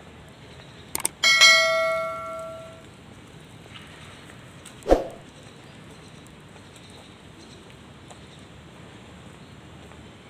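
Subscribe-button sound effect: a couple of quick mouse clicks, then a bright notification-bell ding that rings out for about a second and a half. A single thump follows about five seconds in.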